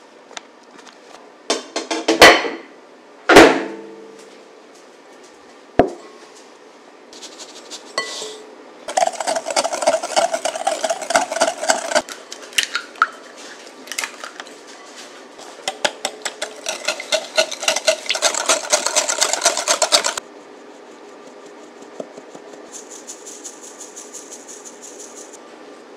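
Baking sounds in a kitchen. About two seconds in, a bench scraper cutting butter gives two sharp knocks. Then a wire whisk beats fast against a glass bowl in two long spells of rapid clinking, and near the end powder is sifted through a mesh sieve with a soft high hiss.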